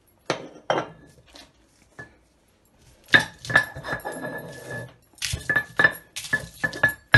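Stone roller knocking and grinding against a flat stone grinding slab (sil-batta), crushing garlic cloves and red chillies. Two sharp knocks about a third of a second in, then from about three seconds in a run of repeated knocking and scraping strokes.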